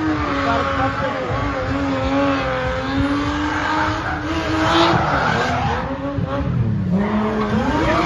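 Spinning car's engine held at high revs while its rear tyres spin in smoke, the pitch wavering as the throttle is worked. The revs dip about six and a half seconds in and climb back near the end.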